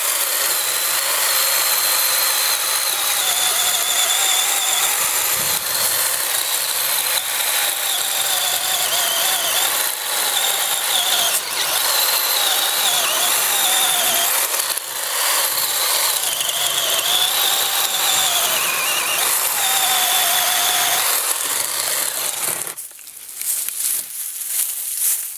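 Black & Decker 18-volt cordless electric chainsaw cutting through a tree trunk, its motor whine dipping and recovering as the chain bites into the wood. It stops about three seconds before the end.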